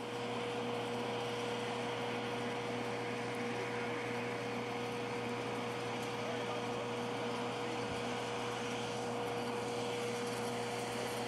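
Steady machinery drone with a constant mid-pitched whine over a faint pulsing low hum, from equipment running at a parked Boeing 747.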